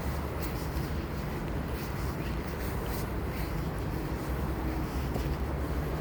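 Steady low rumble of wind buffeting the microphone while walking, with faint scattered crunches from footsteps on the trail.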